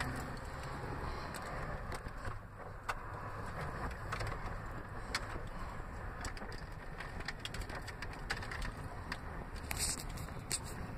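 Small car driving slowly, heard from inside the cabin: a steady low engine and road rumble with scattered light clicks and rattles.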